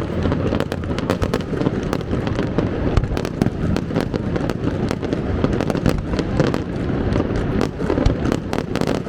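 Fireworks display going off: rapid, overlapping sharp cracks and pops over a continuous low rumble of bursting shells.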